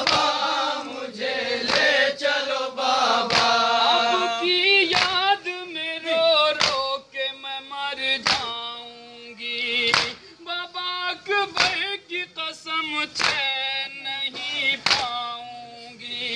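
A group of men chanting a nauha (Urdu mourning lament) in chorus, with rhythmic matam: open-handed chest-beating slaps keeping time with the chant, a little more than one slap a second.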